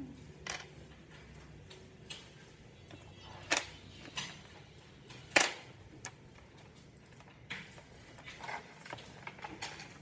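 Small magnetic balls clicking as they snap together in the fingers: about a dozen sharp, irregular clicks, the loudest about five and a half seconds in.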